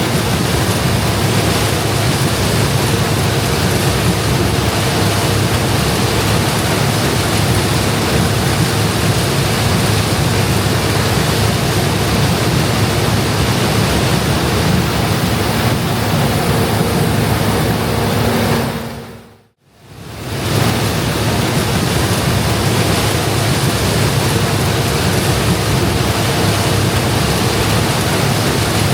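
International Harvester 1460 combine running loud and steady while harvesting corn, a dense wash of machine noise. It cuts out briefly about two-thirds of the way through, then resumes at the same level.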